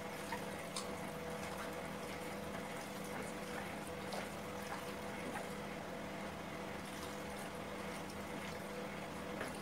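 A hand squishing and mixing raw chicken pieces with garlic paste in a steel pan: faint wet squelching with a few light clicks, over a steady low background hum.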